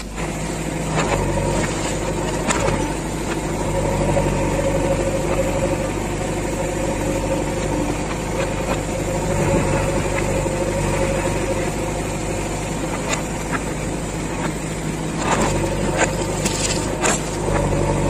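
Diesel engine of a JCB 3DX backhoe loader running steadily while it digs and loads soil, with a few sharp knocks, several close together near the end.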